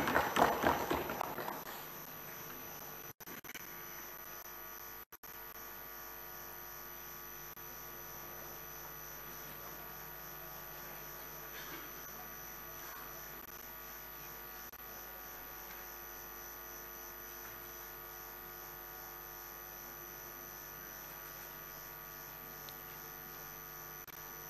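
Steady electrical mains hum, a buzz made of several steady tones. A louder, noisier stretch at the start fades out within about two seconds, and the sound drops out briefly twice, about three and five seconds in.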